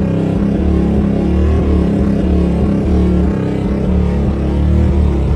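Live music dominated by a loud, steady low bass drone with a pulsing pattern above it.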